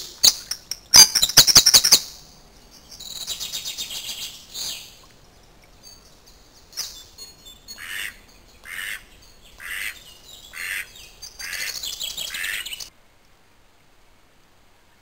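Wild birds calling beside a stream: bursts of rapid, high trilling song, and in the middle a run of short, lower calls about once a second. The sound cuts off suddenly near the end, leaving near silence.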